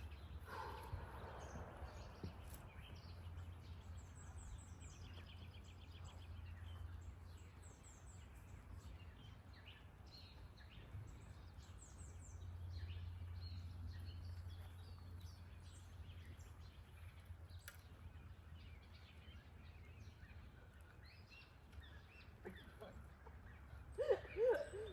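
Faint outdoor ambience: scattered short bird chirps over a steady low hum. Near the end comes a brief louder call from a person's voice.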